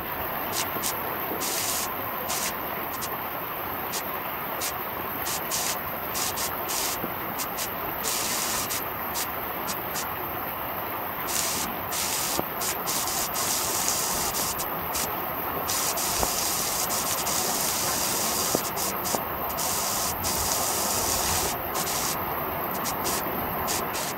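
Heavy rain pouring steadily and splashing into standing water on flooded pavement.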